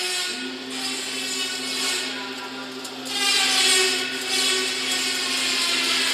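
Automatic chain link fence machine running: a steady electric motor hum that starts about a third of a second in, under a mechanical whirr that grows louder about three seconds in.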